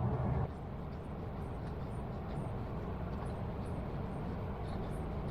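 Steady low background noise with a few faint small clicks.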